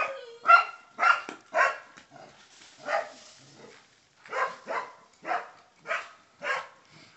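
A dog barking repeatedly: about ten loud barks in uneven runs, with a pause of about a second and a half midway.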